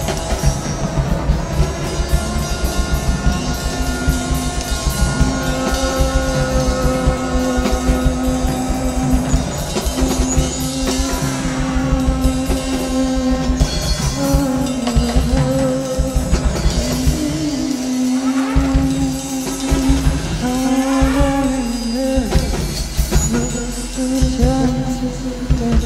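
Live band music: a drum kit playing busily over electronic sounds, with a brass horn holding long notes that bend and waver in pitch through the second half.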